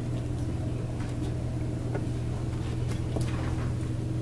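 Steady low hum of a hall's background noise, the hum of ventilation or the sound system, with a few faint clicks.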